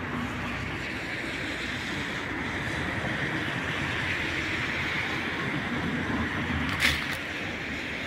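Steady rushing outdoor background noise, with one sharp click about seven seconds in.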